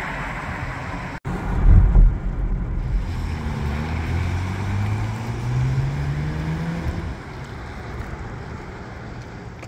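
Road traffic on wet pavement: tyre hiss and wind buffeting the microphone. A vehicle's engine note rises steadily as it accelerates, from about three to seven seconds in.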